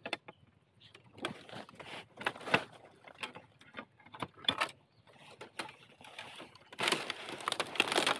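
Irregular knocks and scrapes of a tool prying at a wild bamboo shoot wedged in its clump, working it loose, with a longer stretch of dense scraping and rustling near the end.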